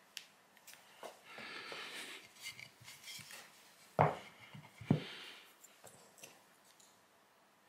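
Quiet workbench handling while epoxy glue is mixed with a wooden stick on masking tape: scratchy scraping and small clicks, with two knocks about four and five seconds in as a plywood piece is moved on the bench.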